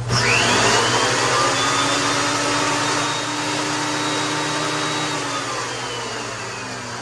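Ridgid 13-inch thickness planer taking a rough-sawn plank: the cutterhead bites into the wood with a sudden loud surge of cutting noise over the motor's whine. The whine holds steady, then sags slowly in pitch and level over the last couple of seconds.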